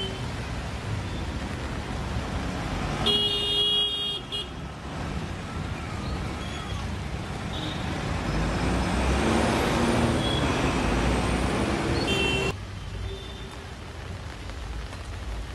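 Road traffic in heavy rain on a waterlogged street. A car horn sounds for about a second, about three seconds in, and gives a short toot again near twelve seconds. The traffic swells around ten seconds, then after a cut only steadier, softer rain is heard.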